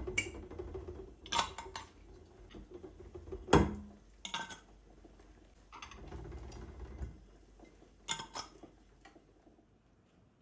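Dishes and cutlery being handled: a series of separate clinks and knocks, the loudest about three and a half seconds in, with a low rumble under the first second and again around six to seven seconds.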